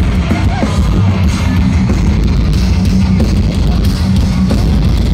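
Heavy metal band playing live through a large festival PA, with distorted electric guitars, drums and very heavy bass.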